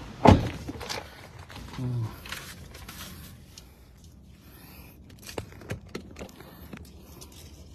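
One sharp thump just after the start, then a quiet stretch with a few faint clicks and rustles, typical of handling noise inside a car's cabin. A short low hum sounds about two seconds in.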